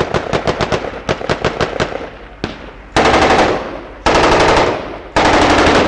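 Automatic gunfire. A rapid, uneven string of shots runs for about two seconds, then three loud sustained bursts come one after another, each lasting about a second.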